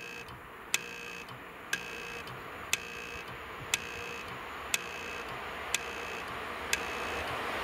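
A sharp metallic tick about once a second, each with a short ringing tone, over a faint low rumble that slowly grows louder as an ET22 electric locomotive running light approaches from a distance.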